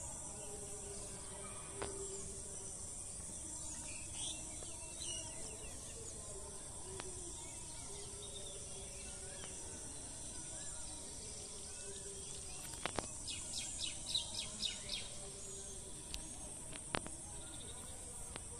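Steady high-pitched insect drone with birds chirping now and then, including a quick run of about seven chirps about two-thirds of the way through; a few sharp clicks near the end.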